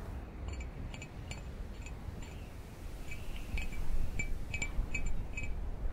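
Faint, light clinks, about a dozen at an uneven pace, each with a brief high ring at the same pitch, over a low steady hiss.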